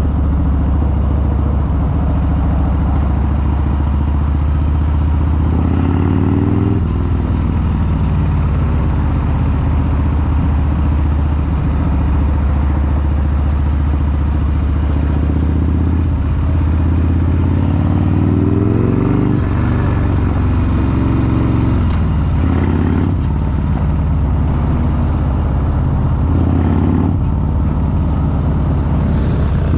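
Harley-Davidson V-twin motorcycle engine running under way in traffic, its pitch rising several times as it accelerates.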